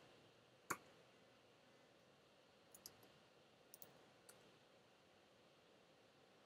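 Faint computer keyboard keystrokes: one sharper key click under a second in, then a few soft taps between about three and four and a half seconds in.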